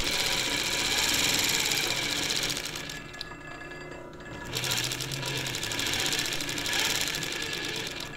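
Merrow A-3DW-3 industrial overlock machine (serger) running at speed, with a fast, even stitching clatter as it trims the cloth and stitches its edge. The sound drops away briefly about three seconds in, then the machine runs again until near the end.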